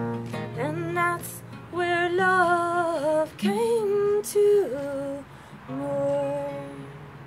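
A woman singing long, held notes over an acoustic guitar with a few strums, in the closing phrases of a slow folk song. The sound dies away near the end.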